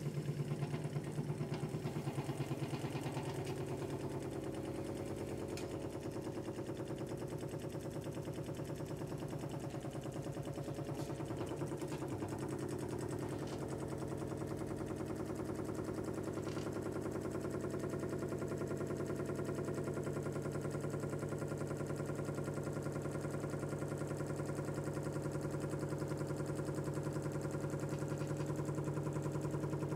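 Homemade tin-can Stirling engine running fast and steadily at about 630 rpm, a quick, even mechanical beat.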